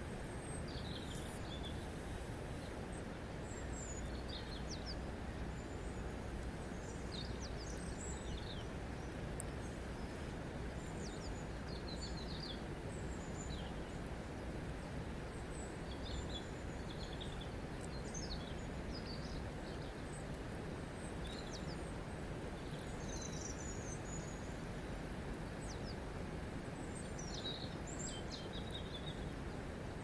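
Steady rush of river water flowing over a stony bed, with short high bird chirps scattered over it.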